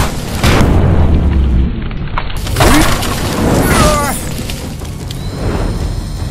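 Cartoon battle sound effects: heavy booms and rumbling blasts with dramatic music underneath, and a couple of short cries in the middle.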